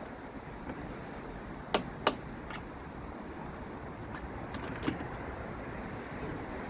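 Plastic interior trim clips clicking as a panel is prised loose by hand: two sharp clicks close together about two seconds in, then a few fainter ones, over a steady background hiss.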